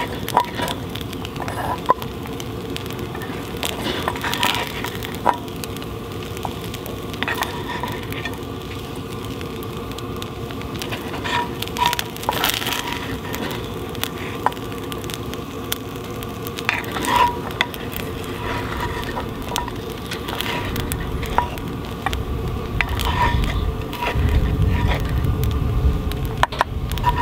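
Food sizzling as it fries over a campfire, a steady sizzle broken by scattered crackles and pops from the fire. A low rumble rises near the end.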